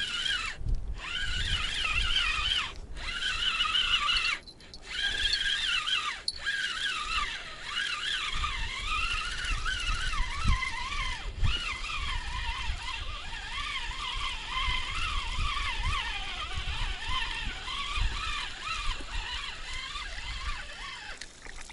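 Spinning reel being cranked to retrieve line with a fish on, giving a wavering whine that rises and falls with the cranking speed. The whine stops briefly several times in the first dozen seconds and runs lower later on. Low wind rumble on the microphone underneath.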